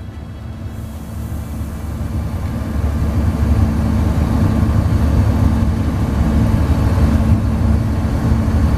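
V 60 diesel shunting locomotive's engine running under way, heard from the cab, growing louder over the first few seconds and then holding a steady low drone with a hum.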